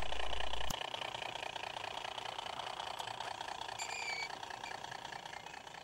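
A 16mm-scale model ore train of tipper wagons running along garden railway track: a fast, steady rattle that slowly fades as it passes.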